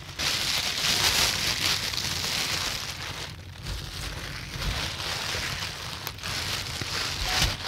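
Trout sizzling as it fries in hot oil in a pan over a wood fire: a steady hiss with small crackles, dipping briefly twice.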